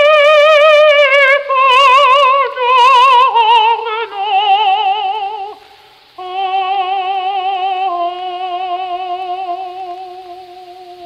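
A solo soprano singing operatic coloratura with a wide, fast vibrato. She holds high notes, runs quickly downward about two seconds in, breaks off briefly about six seconds in, then holds lower notes. The sound is that of an old recording with a dull top end.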